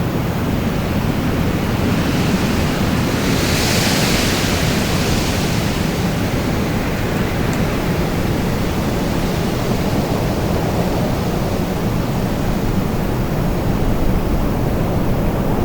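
Strong wind blowing in a steady low rush, with a louder hissing gust swelling and fading a few seconds in.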